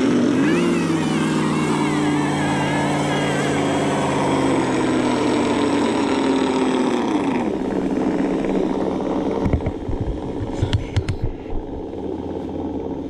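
Simulated engine sound from an ESS-One sound unit on an electric RC crawler, revving: it climbs sharply at the start, holds high with a slowly sagging pitch for about seven seconds, then drops back. Irregular low knocks follow in the last few seconds.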